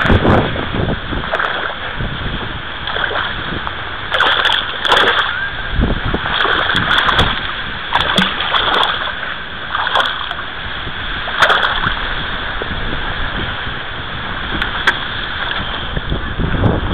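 Strong wind buffeting the microphone over splashing water at the bank's edge, rising and falling in irregular gusts, with short knocks from handling the rod and landing net.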